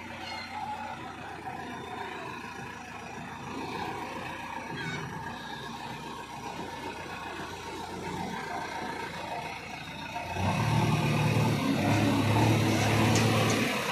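Diesel engine of a JCB backhoe loader running steadily, then growing much louder with a heavier low note about ten seconds in.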